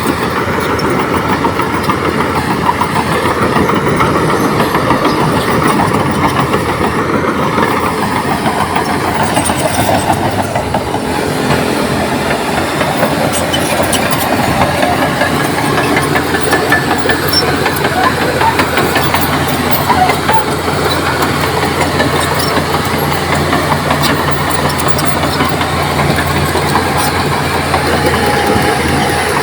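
Komatsu D58P crawler bulldozer working: its diesel engine runs steadily under load over the continuous clanking of its steel tracks.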